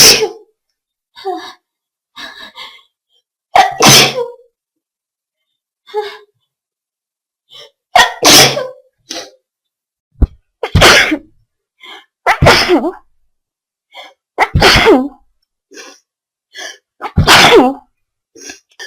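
A person sneezing forcefully again and again, about seven loud sneezes a few seconds apart, with quieter build-up sounds just before most of them.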